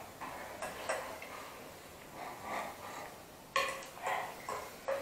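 Forks clicking and scraping in plastic food containers as people eat noodles, with a sharper knock about three and a half seconds in.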